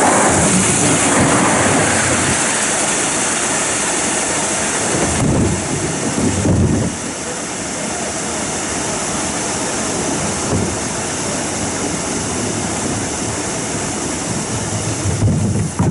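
Steady rush of water pouring over a small river weir, with wind rumbling on the microphone a couple of times, in the middle and near the end.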